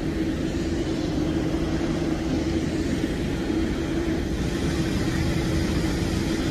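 Steady engine drone of airport apron machinery, with a constant low hum over a rumbling background.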